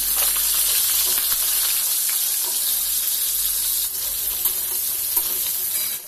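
Potatoes and carrots sizzling steadily in hot oil in a kadai as they fry together.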